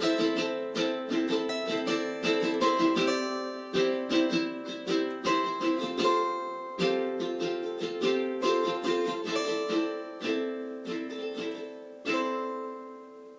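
A plucked string instrument played solo, picking out a melody over chords. A last chord is struck about twelve seconds in and left to ring and fade.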